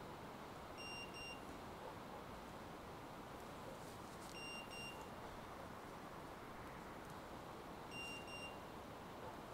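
Hunting dog's beeper collar sounding a short double beep three times, about every three and a half seconds, over faint steady outdoor hiss.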